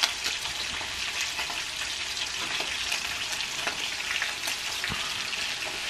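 Chicken breasts frying in hot oil in a skillet: a steady sizzle sprinkled with sharp pops of spitting oil, the loudest pop right at the start and another about five seconds in.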